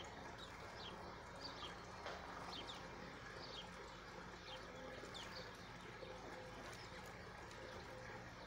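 Small birds chirping: short, high, falling chirps, irregularly about once a second, over a steady low hum.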